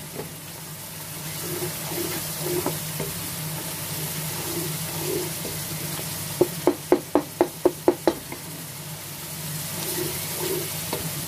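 Onion-tomato masala frying in oil in a non-stick pan, sizzling steadily while a wooden spatula stirs and scrapes it; this is the bhunai stage, cooked until the oil rises to the top. A little past the middle comes a quick run of about eight sharp knocks of the spatula against the pan.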